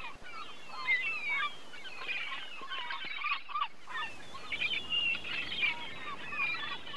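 A flock of birds calling over one another: many short, overlapping calls, with a steady hiss underneath.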